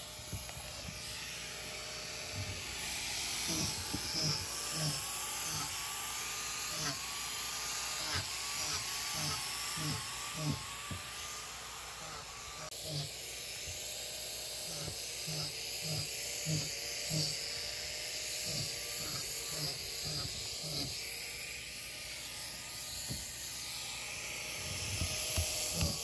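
A hammer tapping mushroom plug-spawn dowels into drilled holes in a birch log: a string of light knocks, sharper and quicker near the end, over a faint wavering tone.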